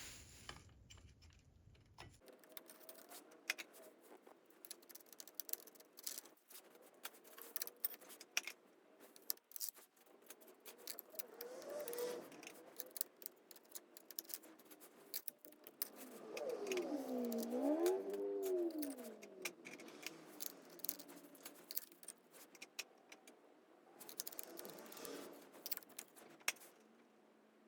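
Metal parts and tools clinking and rattling in a stream of sharp clicks, as a motorcycle engine is worked on by hand. About two-thirds through, a wavering tone rises and falls for a few seconds and is the loudest sound.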